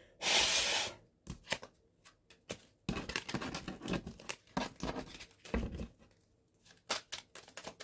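A deck of cartomancy cards being handled and shuffled by hand: a short loud swish near the start, then from about three seconds in a run of quick clicks and slaps as the cards go through the hands. The cards are sticky and cling together, so they shuffle with difficulty.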